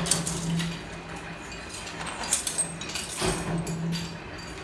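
Sharp metallic clinks and knocks of a steel strip coil and a manual decoiler stand's steel arms and clamp being handled as the coil is fitted, several times, over a low hum that comes and goes.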